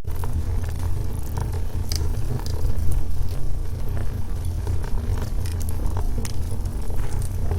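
Wood logs burning in a fireplace: a steady low rumble of the fire with irregular sharp crackles and pops from the burning wood.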